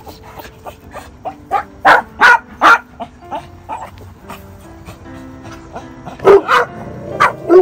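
A small dog barking repeatedly in sharp yaps, with three loud barks about two seconds in and another run of loud barks near the end, quieter yaps in between. Steady background music sounds under the barking.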